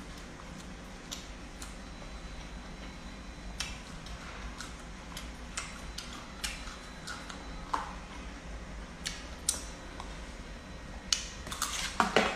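A person eating by hand: scattered small clicks and mouth smacks of chewing, over a steady low background hum, with a louder knock near the end.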